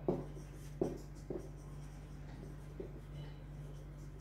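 Marker pen writing on a whiteboard: a few short, sharp strokes in the first second and a half, then fainter strokes, over a steady low hum.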